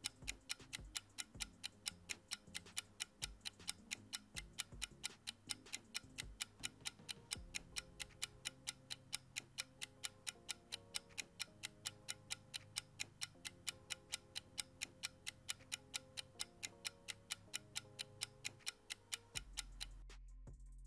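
Clock-tick sound effect ticking evenly, about three to four ticks a second, over faint background music, timing the quiz's 20-second answer period. The ticking stops near the end and a low steady hum takes over.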